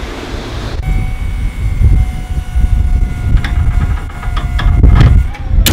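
Electric forklift whining steadily as it raises its forks, over a low rumble, with clicks and knocks from the straining load. A sharp crack near the end as the nylon cinch belt, too loose, slides out of its hold.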